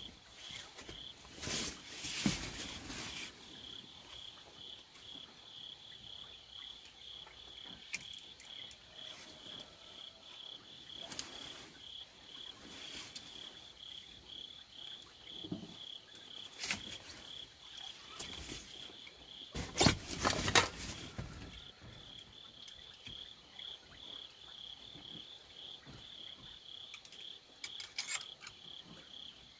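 Crickets chirping in a steady, finely pulsing trill. A few louder knocks break in, the loudest a short cluster about twenty seconds in.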